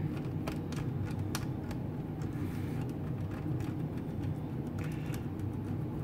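Light, irregular clicks and taps of a small screwdriver and fingers on a laptop's plastic bottom cover as its screws are driven back in, over a steady low hum.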